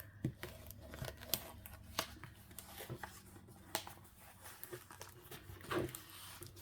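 A diamond-painting canvas with its plastic cover being opened out by hand: scattered crinkling and rustling with small clicks.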